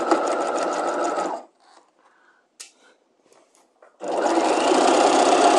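Sewing machine stitching a seam. It runs until about a second and a half in and stops. A few small clicks follow during the pause, then a second, louder run starts about four seconds in.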